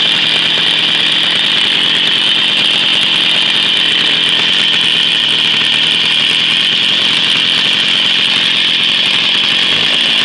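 Jawa 50 type 05 moped's 50 cc two-stroke engine from 1966, running steadily through a Jawa silencer on its first run after a rebuild and twenty years standing, with its original points ignition.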